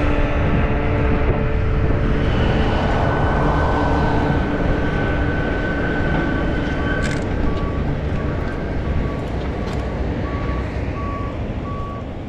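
Road traffic and wind noise, with a short electronic beep repeating at an even pace through the second half.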